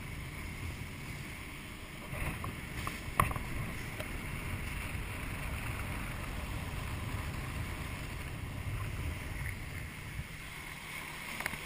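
Steady wind buffeting and water rushing past a wakeboarder towed behind a boat, as heard on a body-worn action camera's microphone, with a brief sharp knock about three seconds in.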